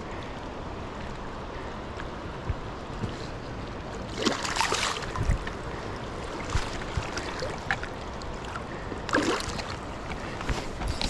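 Shallow creek water rushing steadily over a rocky bed, with two brief splashes, one about four seconds in and another about nine seconds in.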